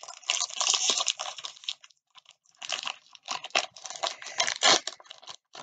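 Sealed trading-card pack torn and crinkled open by hand, hard to open: bursts of crackling with a short pause about two seconds in.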